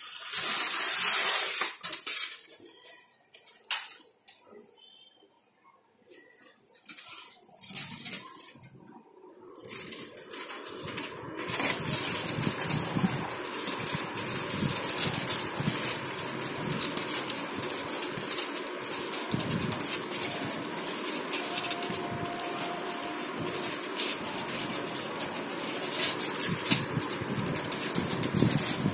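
Rustling and scraping handling noise close to the microphone while a cut thermocol (expanded polystyrene) panel is moved about. There is a burst at the start and a quieter stretch with scattered clicks, then a steady rustling hiss from about ten seconds in.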